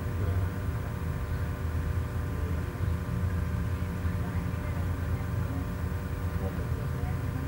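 Steady machine hum holding several fixed pitches, unchanging throughout.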